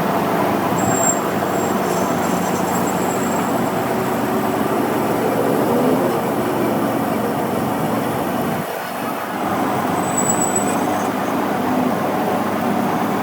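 A motor running steadily, dipping briefly about nine seconds in.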